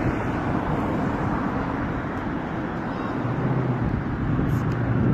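Helicopter overhead: steady rotor and engine noise, with a low hum coming in about three seconds in as it grows a little louder.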